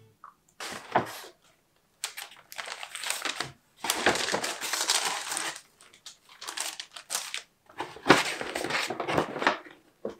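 Large paper shopping bag rustling and crinkling as it is handled, in irregular bursts.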